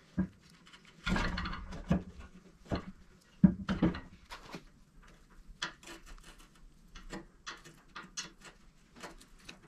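Clicks, taps and scrapes of washers and a screwdriver being worked under the steel base plate of a two-post lift column on concrete, shimming the post. A louder scraping stretch comes about a second in and a sharp knock a little later, then a run of small ticks through the second half.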